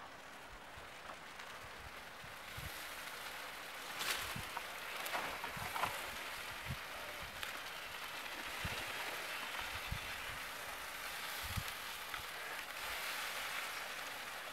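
Bananas sizzling on a hot stone slab over embers: a steady crackling hiss that comes up a couple of seconds in, with a few soft low knocks.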